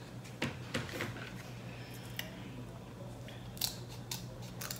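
Kitchen scissors snipping and cracking a crab leg shell: scattered short sharp clicks and crunches, a few louder ones near the end.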